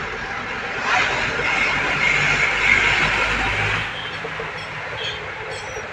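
Road and engine noise from a moving vehicle. It swells for a few seconds about a second in, with a thin, high steady tone over it, then settles back.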